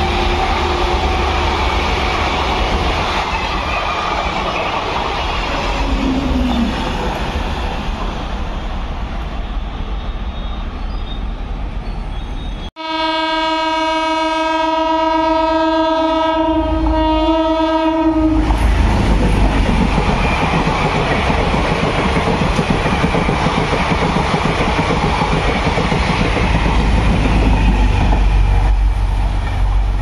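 Indian Railways diesel train running past with steady rumble and wheel clatter, the tail of a horn fading in the first couple of seconds. Just before halfway the sound drops out for an instant, then one long horn blast is held for about five seconds, after which the running noise returns.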